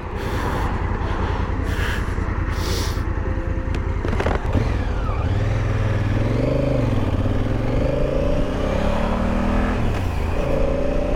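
Cars rush past on the highway, then about four seconds in the Honda Africa Twin's parallel-twin engine pulls away and accelerates through the gears. Its pitch climbs and drops back at each shift, under steady wind rush.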